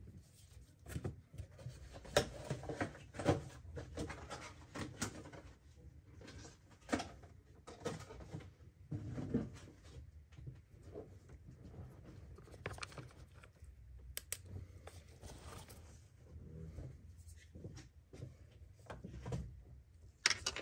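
Irregular cloth rustling, scraping and light clicks of hands working in a car's engine bay, as a rag is cleared from around the fuel filter. A sharper click comes near the end.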